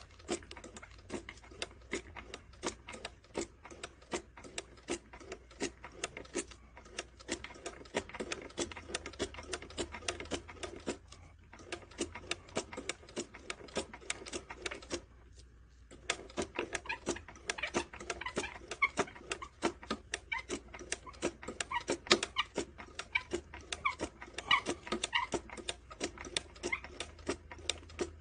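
Hand-cranked fur sewing machine stitching a leather strip: quick, regular clicking of its needle and looper mechanism, with a short pause about halfway through.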